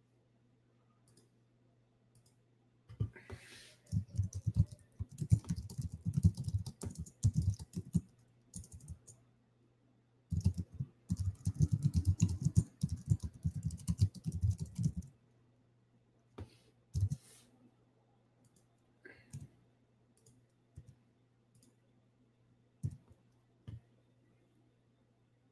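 Typing on a computer keyboard: two runs of rapid keystrokes of about five seconds each, a few seconds in and again near the middle, then a handful of single, spaced-out clicks.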